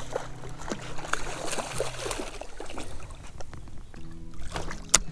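A small pike thrashing and splashing at the water's surface as it is reeled in alongside the float tube, with water sloshing. There is a sharp knock near the end.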